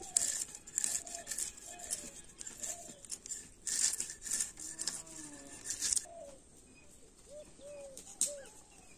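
Rasping, scraping strokes of a snakehead fish being scaled and cut against a boti (curved fixed blade). The strokes stop about six seconds in, and short repeated bird calls sound throughout.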